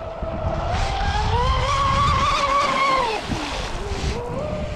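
Radio-controlled model speedboat's motor whining as the boat races across the water. Its pitch rises from about a second in and falls away shortly after three seconds.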